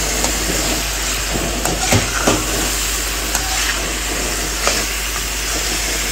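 Chicken, carrot and capsicum sizzling as they stir-fry in a kadhai, a steady hiss with a few short clicks and knocks of the stirring utensil against the pan.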